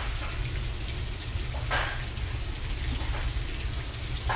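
Mahi mahi fillets sizzling steadily as they pan-fry in olive oil and garlic, with one short sharper noise about two seconds in.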